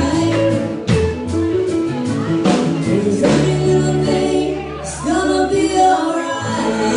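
A live band playing a song with a singer, over a held bass note in the middle.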